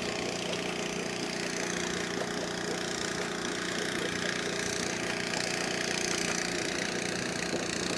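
Boat engine running steadily, a constant even hum with noise from the water and moving air over it.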